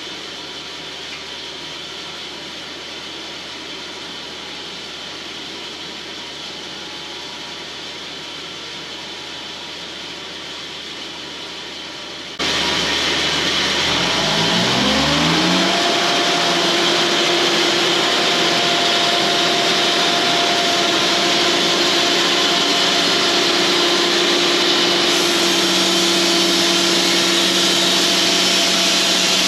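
Cooks band sawmill running: a steady machine hum, then a sudden jump in loudness about twelve seconds in, after which a whine rises in pitch over about two seconds and holds steady as the mill comes up to speed.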